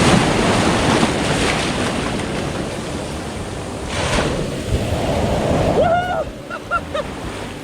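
Gulf surf washing onto the beach with wind buffeting the microphone, a steady rushing noise that surges about four seconds in and eases near the end.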